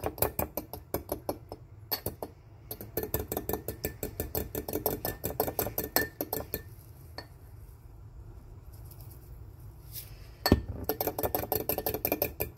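A metal fork whisking melted butter in a small glass bowl: quick, even clinks of the fork against the glass, about five or six a second. They stop for a few seconds past the middle, then a sharp knock and the clinking starts again.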